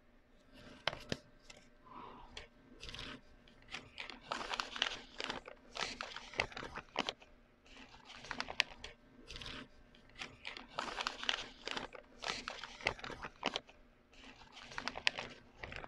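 A large sheet of Manila pattern paper rustling and crinkling as it is handled and folded by hand, in irregular bursts with a few sharper crackles.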